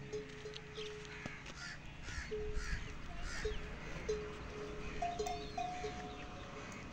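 Harsh animal calls repeating about twice a second for a couple of seconds, over thin steady ringing tones that start and stop again and again.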